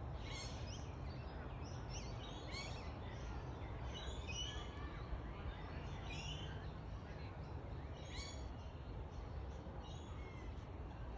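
Small birds chirping on and off, short high calls scattered throughout, over a steady low rumble of background noise.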